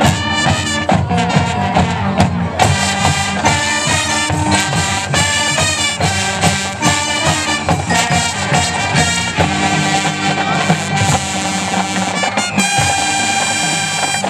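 High school marching band playing: a full brass section over marching drums, with amplified electric guitars, ending on a held chord near the end.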